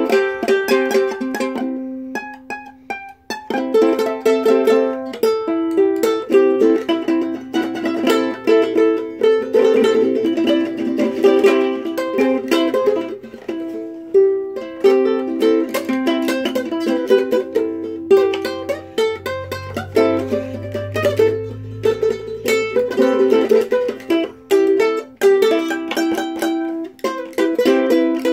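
Ukulele being played, a run of quick plucked notes and strummed chords, with a short pause about two to three seconds in.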